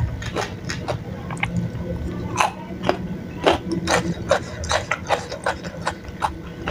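Close-up wet chewing of chewy tapioca-starch cirambay in chili oil: irregular sticky smacks and clicks of the mouth, about two a second.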